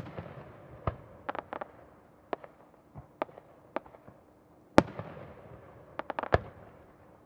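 Aerial firework shells bursting: two loud bangs about five seconds apart, one at the start and one near the middle. Each is followed by a rumbling tail and a scatter of sharper cracks.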